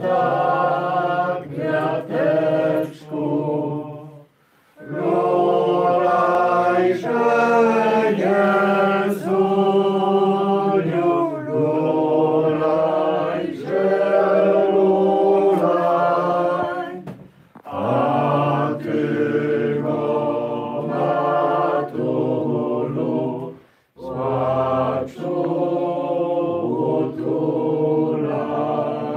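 A small group of voices singing a hymn unaccompanied, in sustained phrases separated by three short pauses.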